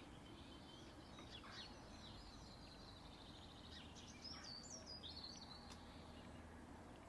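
Faint birdsong: several birds chirping and whistling, with a rapid trill about three seconds in, over a low background hum.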